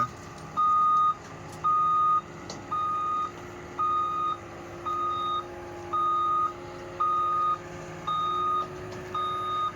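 Loader's reversing alarm beeping at one pitch, about once a second, over the low steady running of its engine as the loader backs down off a trailer.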